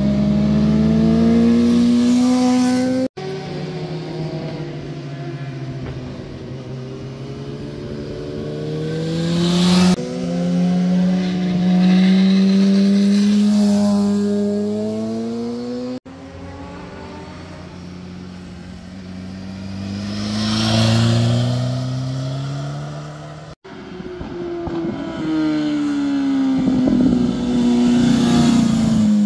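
Sport motorcycle engines as the bikes pass one after another through a bend. The engine notes rise and fall as the riders rev and accelerate out of the turn, and the sound breaks off abruptly a few times between passes.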